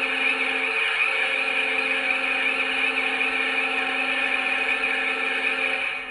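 A small motor whirring steadily with a hiss, then running down and stopping near the end.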